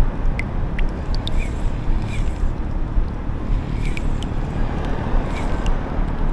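Wind buffeting an open-air microphone: a steady low rumble, with scattered faint short ticks above it.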